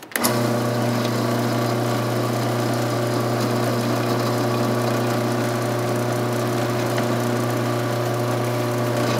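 Drill press motor running with a steady hum while its bit bores a pinhole through a stag antler knife handle.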